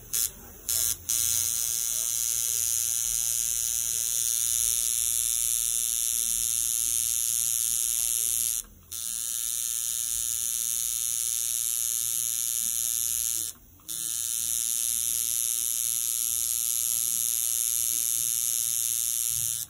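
Small handheld electric motor tool buzzing with a steady high hiss. It starts with two short bursts, then runs, is switched off briefly twice, and stops at the end.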